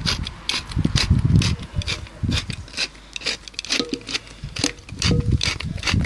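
Hand pepper mill being twisted to grind black pepper: a run of quick grinding, ratchet-like clicks, a few per second, with low handling knocks.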